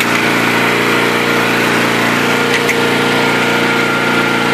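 Honda EM2500X portable generator's engine running steadily, on fresh gas, in its first run after nearly two years sitting unused.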